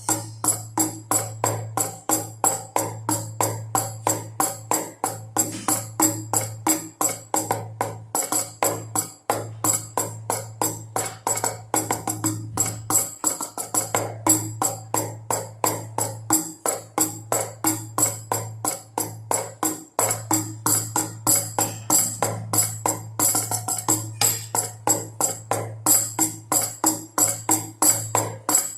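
Baby rattle shaken together with drum beats in a quick, even, repeating rhythm.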